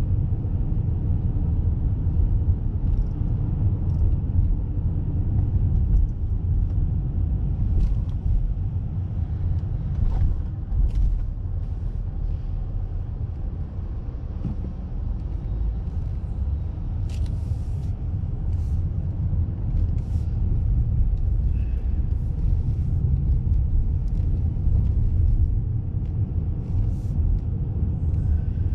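Steady low rumble of road and engine noise inside a moving car, with a few faint brief ticks.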